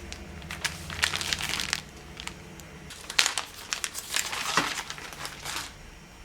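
Plastic packaging crinkling and rustling as it is handled during an unboxing, in two spells with sharp crackles.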